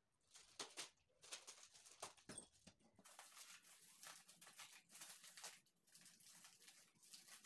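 Faint crinkling and rustling of plastic packaging being pulled open by hand, a string of small crackles that grows more continuous about three seconds in.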